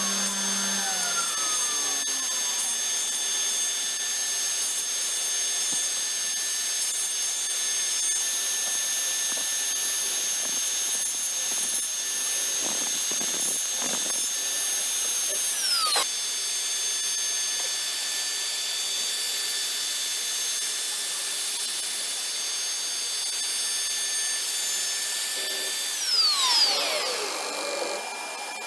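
Homemade CNC router spindle whining steadily at a high pitch while its small end mill cuts into a wooden block. Near the end the whine falls steeply in pitch as the spindle winds down.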